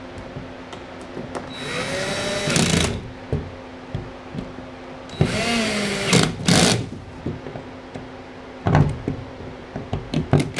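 12-volt cordless drill driving machine screws through a ball mount into threaded inserts in a plastic hull: two runs of whirring, about two and five seconds in, each rising in pitch as the motor spins up. A few short clicks and knocks follow near the end.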